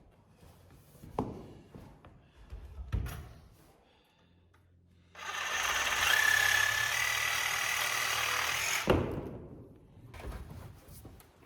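A small power tool's motor runs steadily for about four seconds, with a whine that steps up in pitch partway through, then stops with a sharp knock. A couple of knocks come before it starts.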